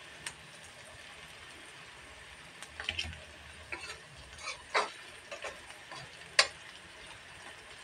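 Spatula scraping and knocking against an aluminium kadai while onions and whole spices are stirred in oil with turmeric, over a faint steady sizzle. The scrapes come irregularly, the loudest about six seconds in.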